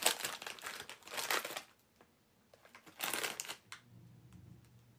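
A plastic chip bag of lime corn chips crinkling as it is handled and opened, in two spells: for the first second and a half and again briefly about three seconds in.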